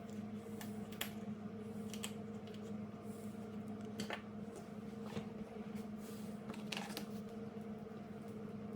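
Scattered light clicks and taps of small parts and tools being handled on a workbench, about one a second, over a steady low electrical hum.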